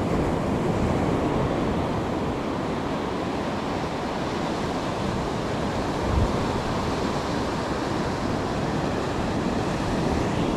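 Ocean surf breaking and washing up the beach, a steady rush, with wind on the microphone.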